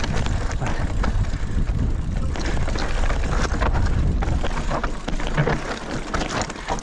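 Mountain bike rolling down a rocky trail: tyres crunching over loose stone and the bike rattling with many short clicks, over a steady rumble of wind buffeting the microphone.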